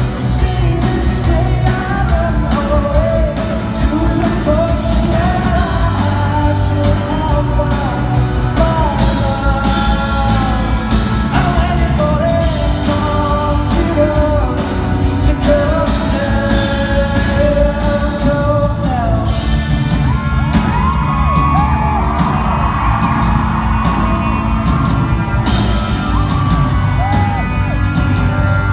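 Live pop-rock song: a male lead singer over band accompaniment, with yells from the audience.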